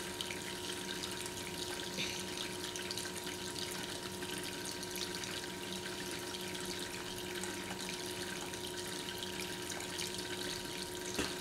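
Steady background hiss with a low electrical hum, and a few faint clicks, likely from the small plastic pieces of the football kit being fitted together by hand.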